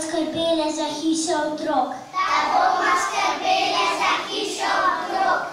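A young child singing in a high voice into a microphone, with phrases that bend in pitch and sometimes hold a note.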